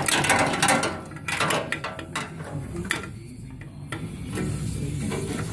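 Metal clinking and knocking as a 13 mm socket on a long extension is worked up past steel lines and chassis parts toward the starter's top bolt hole: a quick run of sharp taps in the first few seconds, then quieter scraping.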